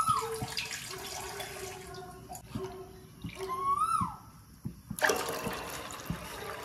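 Water poured from a jug into a steel pot of soaking pulses, splashing in suddenly about five seconds in. Before it, two whistled calls that rise then fall, a bird outside.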